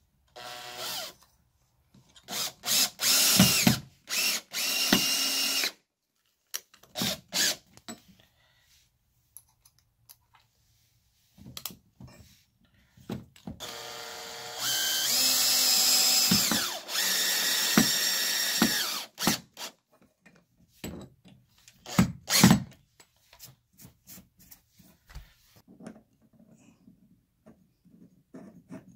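Power drill driving screws through a steel barn door floor guide. It runs in several short bursts during the first six seconds, then in one longer run of about five seconds near the middle. A few sharp knocks follow.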